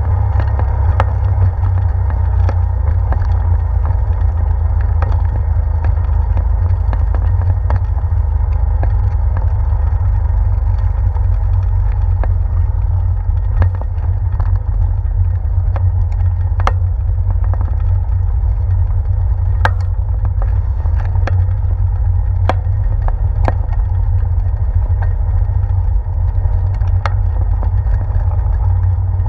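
Bicycle rolling along a boardwalk, heard through a handlebar-mounted action camera: a steady, heavy low rumble of tyre and frame vibration, with scattered sharp clicks and knocks as the bike jolts over the boards.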